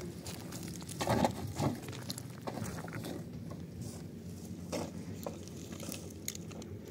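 Footsteps crunching and scuffing on loose stones and gravel, in scattered short crunches, the loudest about a second in, over a faint steady low hum.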